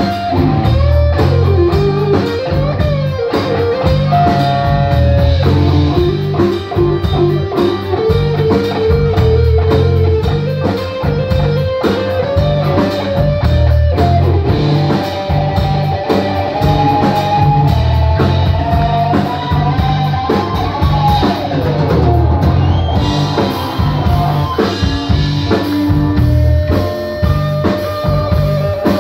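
Live rock band playing: a semi-hollow-body electric guitar carries a lead line that bends and slides in pitch, over electric bass and a steady drum-kit beat.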